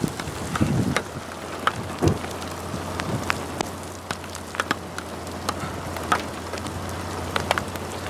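Raindrops tapping on window glass: scattered separate sharp taps over a soft rain hiss, with a low steady hum underneath from about two seconds in.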